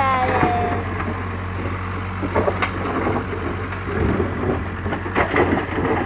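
Case 580K backhoe's diesel engine idling steadily, under the scraping and knocking of a rake dragged through dirt and loose stones.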